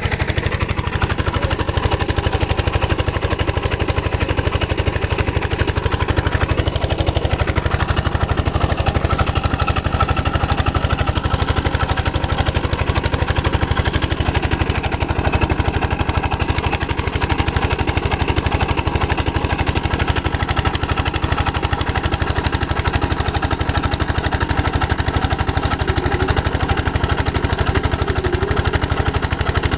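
Diesel engine of a water pumpset running steadily, a fast even firing beat throughout.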